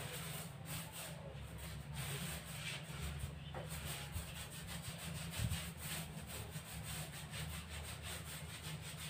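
Paint roller on a long extension pole rolling up and down a wall, a steady rubbing swish with each stroke. A single low knock about halfway through.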